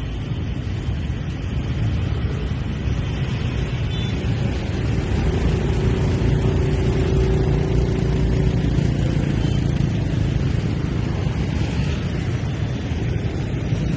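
Dense motor-scooter traffic: many small engines running together with tyre noise in a steady low rumble, and one engine's hum standing out for a few seconds in the middle.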